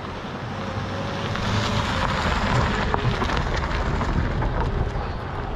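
A Toyota station wagon driving past close by on a dirt and gravel road: tyres crunching and crackling on the loose surface over a low engine rumble. It grows louder over the first two seconds, then holds.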